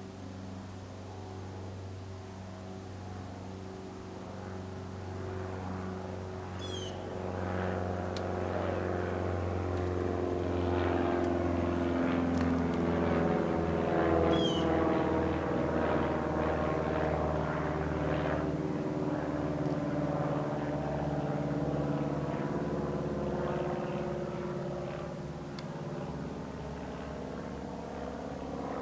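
An engine passing by: its hum grows louder to a peak around the middle, then drops in pitch and fades.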